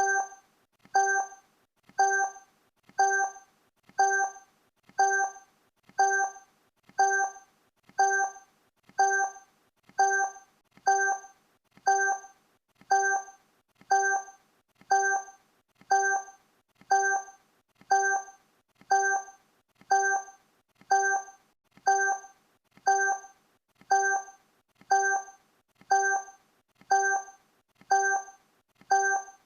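Countdown timer sound effect: one short pitched tick-like tone every second, each starting sharply and fading quickly, evenly spaced throughout.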